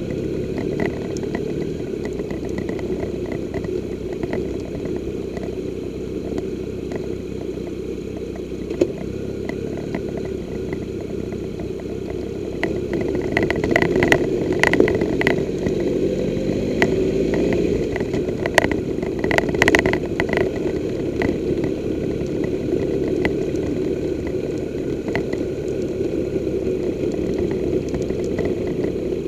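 Triumph Tiger 1200's three-cylinder engine running at low revs as the motorcycle rolls slowly down a rough gravel track. It gets a little louder from about twelve seconds in, with a brief rise and fall in engine pitch and a scatter of sharp clicks, then settles back to a steady drone.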